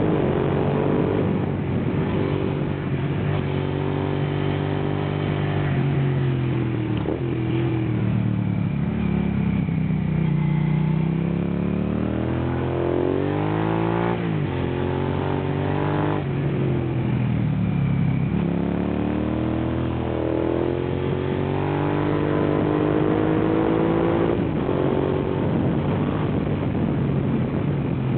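Suzuki SV650's 645 cc V-twin engine heard from the rider's seat, its revs rising under acceleration and falling away again several times through a run of bends.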